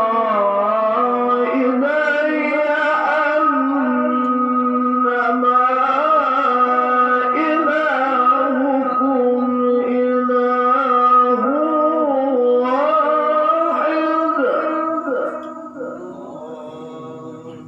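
Male Quran reciter chanting in melodic tilawah style, holding long ornamented notes that wind up and down in pitch, then fading out near the end.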